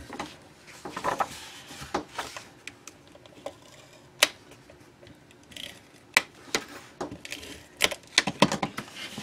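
Fast Fuse adhesive applicator run along the edges of paper flaps, with light scratching on the paper and scattered sharp clicks.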